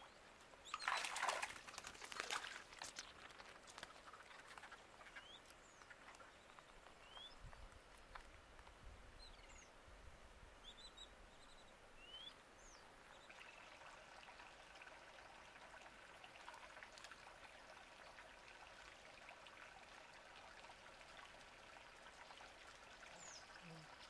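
Splashing and thrashing in water about a second in, with a smaller splash shortly after, as a hooked fish is pulled from a pond on a hand line. Faint short bird chirps follow now and then.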